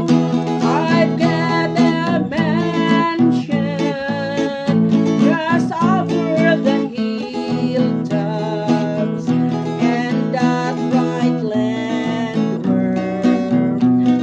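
Music: strummed acoustic guitar with a singing voice over it.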